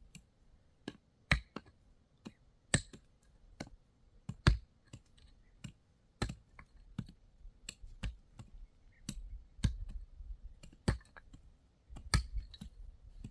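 A series of sharp, irregular knocks and clicks, about one or two a second, over a faint low rumble; the loudest knock comes about four and a half seconds in.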